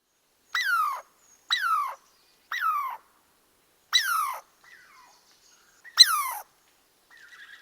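A small animal crying: five short, high calls about a second apart, each sliding down in pitch, with a few fainter calls between them.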